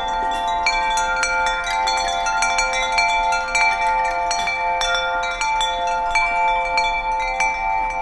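Wind chimes ringing, with frequent overlapping strikes over long ringing tones.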